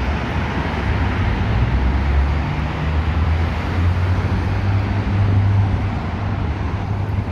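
Street traffic: cars and buses driving by, with a steady low engine hum under the noise of tyres on the road.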